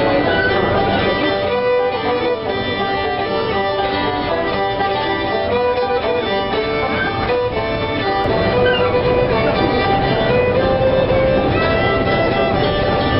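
Fiddle playing a tune, with guitar accompaniment.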